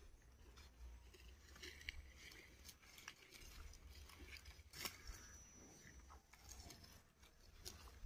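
Near silence: faint scattered clicks and rustles over a steady low rumble.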